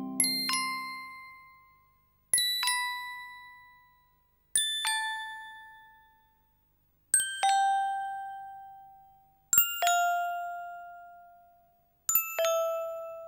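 Bell-like chime struck as a quick double 'ding-dong', repeated six times about every two and a half seconds, each one lower in pitch than the last and ringing out to fade.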